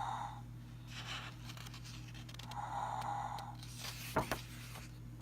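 A sound book's small speaker playing a snoring effect twice, about three seconds apart, between rustling of paper as a page is turned. A couple of sharp knocks come near the end.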